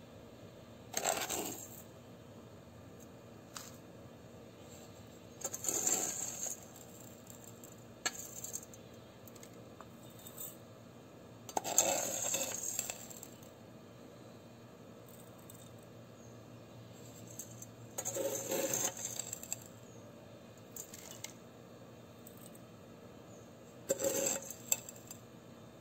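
Spoonfuls of dry soil tipped into a small metal cup, five times about every six seconds: each a brief rattle of grains with a clink of the metal spoon against the cup.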